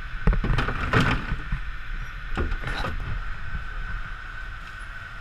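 Several knocks and clunks of work at a trawl winch, clustered in the first second and again between two and three seconds in, over the steady drone of a fishing boat's engine with a steady high whine.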